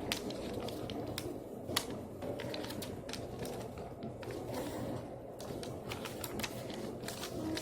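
Irregular sharp clicks and taps, a few a second, over a steady low hum.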